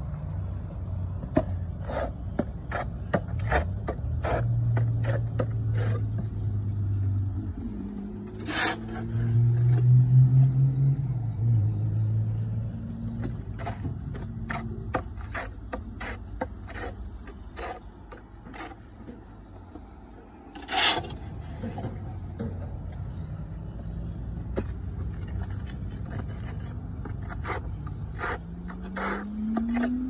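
Skid steer engine running, loudest about a third of the way in and rising in pitch near the end. Over it come many short, sharp scrapes and clicks of tools working through loose dirt and clods.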